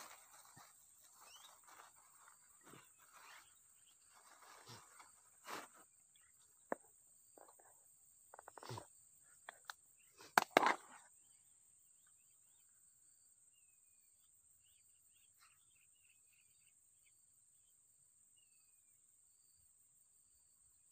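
Rustling and clicking of close handling in dry grass and a plastic bag, with the loudest knocks about ten seconds in. After that it goes quiet but for a faint steady high drone, a faint regular ticking and a few small chirps.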